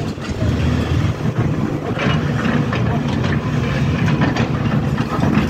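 Hidromek 310 LC crawler excavator's diesel engine running under load with its hydraulics working as the upper structure swings round with an empty bucket, with a few metallic clanks.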